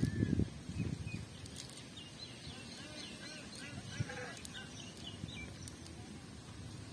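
Low wind buffeting on the microphone in the first second, then faint, wavering animal calls in the background, bleating like goats.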